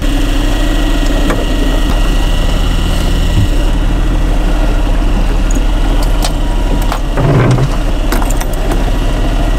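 Fishing boat's engine running steadily at trolling speed, a constant low hum. A few short clicks come through it, about a second in and again later on.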